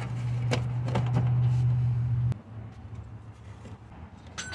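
A few sharp plastic clicks and knocks from engine-bay parts being handled, over a steady low hum. The hum is louder for the first two seconds or so and then cuts off suddenly, and a short metallic clink comes near the end.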